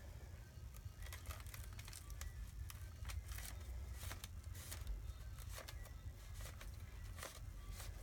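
Faint rustling and scattered small clicks of manila rope being pushed into a plastic straw that runs through a corrugated paper roll, over a low steady hum.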